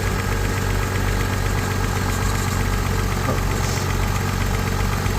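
An engine idling steadily, an even low running sound with no change in speed.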